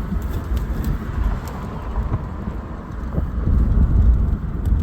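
Low, uneven rumble of a Saturn Sky roadster heard from inside the cabin, with road and wind noise, growing louder about three and a half seconds in.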